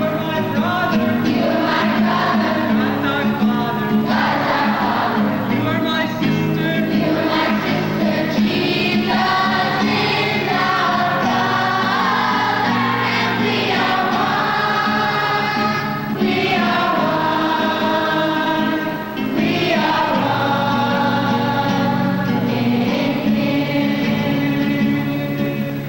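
Group of children singing a worship song together over a steady instrumental accompaniment, with a brief break between phrases near the end.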